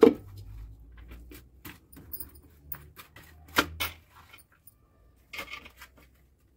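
Kitchen handling noise over a low rumble, with a few sharp knocks: the loudest at the very start, two more about three and a half seconds in, and a short cluster near the end.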